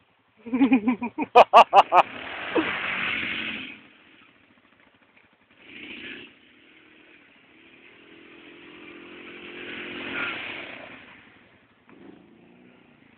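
Yamaha Raptor quad's engine revving: a quick run of throttle blips near the start runs into a hard rev, then a short burst about six seconds in and a longer surge that rises and fades near the end.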